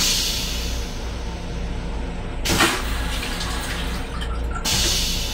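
Restroom of an M7 electric commuter railcar: a steady low rumble from the train, with a short, loud rushing burst about two and a half seconds in and a hiss that starts suddenly near the end.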